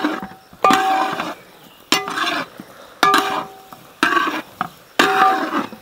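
A cooking spoon scraping and knocking around a metal pot while a dry beef and tender-jackfruit fry is stirred. There are about five strokes a little over a second apart, and the pot rings briefly after each.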